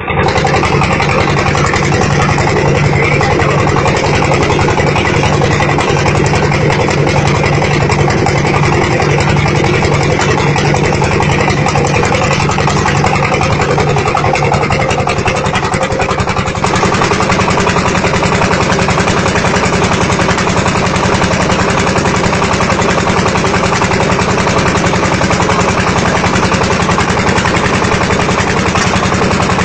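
Engine-driven brick press machine running steadily and loudly, a dense mechanical chugging that shifts slightly in tone just past the halfway point.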